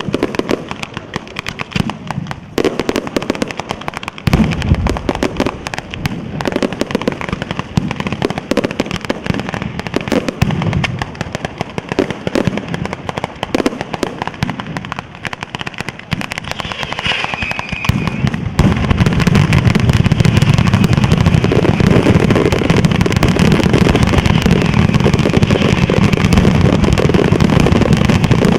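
A daytime 'batteria alla sanseverese' firework barrage: rapid, irregular firecracker bangs and small aerial bursts, going over about eighteen seconds in into a continuous dense roll of explosions as the finale builds.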